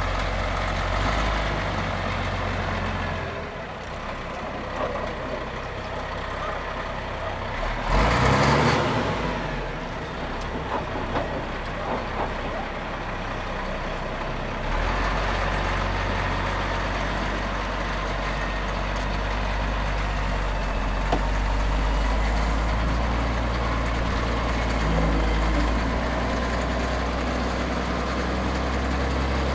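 Old Caterpillar wheel loader's diesel engine running as it carries a car on its forks, steadily and louder from about halfway through. A loud burst of noise comes about eight seconds in.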